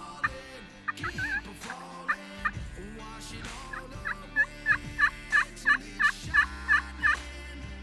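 Turkey yelping: a few scattered clucks and yelps, then an even run of about ten loud yelps, roughly three a second, from about four seconds in.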